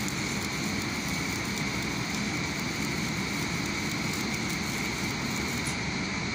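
Electric arc welding on a steel crane rail: the arc makes a steady crackling hiss that stops near the end as the arc is broken. A steady low rumble runs underneath.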